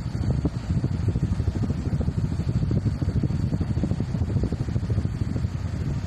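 Hampton Bay Huntington III ceiling fan running, its blades driving air past the microphone: a steady low rush with a quick fluttering buffet.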